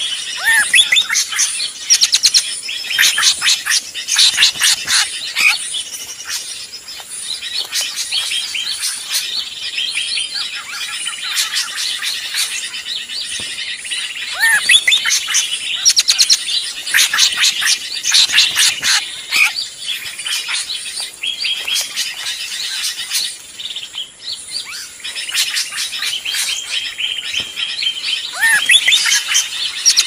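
Dense, noisy chorus of many small birds chirping and trilling at once: a bird-lure (pikat) recording built around agitated drongo calls. Rising whistles recur about every fourteen seconds, as if the recording loops.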